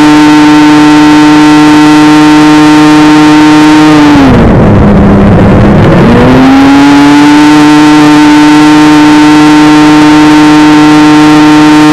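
Outlaw 600 racing snowmobile's two-stroke engine, heard onboard at high, steady revs. About four seconds in the revs drop sharply as the rider lifts off and brakes for a turn. After about two seconds the engine climbs back up under throttle and holds a high steady note again.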